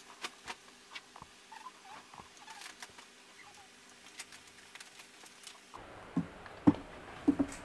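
Light clicks and scratches of fingers working supply wires on an amplifier circuit board, with a few louder knocks near the end as the board is handled.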